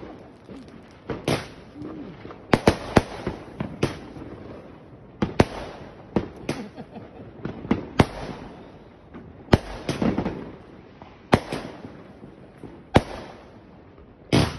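Fireworks going off, with shots bursting overhead: a sharp bang about every one and a half seconds, two close together near the start.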